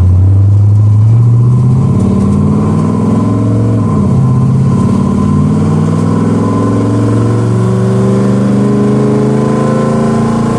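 Car engine under acceleration, its revs climbing, falling sharply about four seconds in as the 4R70W automatic transmission upshifts, then climbing slowly again in the next gear.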